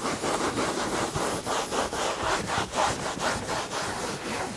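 Microfibre cloth rubbed briskly back and forth over a car seat in quick strokes, buffing off a freshly applied leather-and-plastic protective coating.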